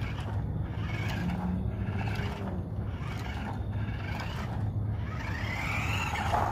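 Adventure Force Trail Chaser RC buggy driving on a concrete sidewalk: its small electric motor whirs and the tyres scrape over the pavement. Near the end a whine rises and falls as the car comes close.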